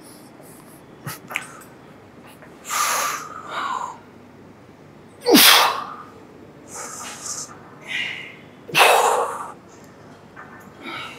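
A man's sharp, forceful breaths through nose and mouth in time with the reps of a barbell row. There are several bursts spaced a second or two apart, the loudest about five and nine seconds in.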